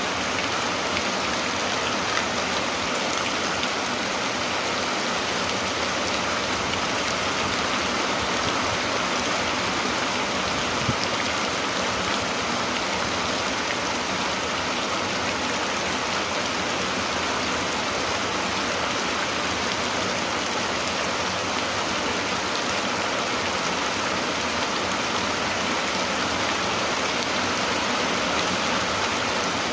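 Steady rain falling, an even hiss that holds at the same strength throughout.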